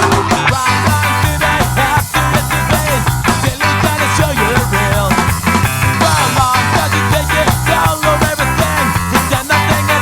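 Background rock music with a steady drum beat, bass, guitar and vocals.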